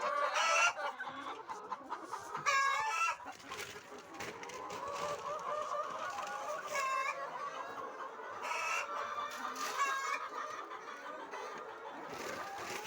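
A large flock of laying hens clucking and calling all at once, a steady chorus with louder single calls standing out every few seconds.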